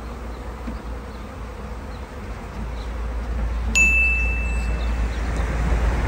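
A honey bee swarm buzzing steadily over a low rumble. About two thirds of the way through, a single high, bright ding rings out for about a second.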